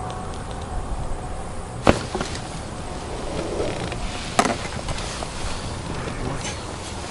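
Wind buffeting the microphone as a steady low rumble, with two sharp clicks about two and a half seconds apart.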